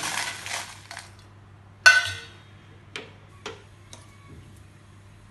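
Dried red chillies poured from a steel bowl into an iron kadai, a dry rustling clatter lasting about a second. About two seconds in comes one sharp metal clink with a short ring, then a few faint ticks.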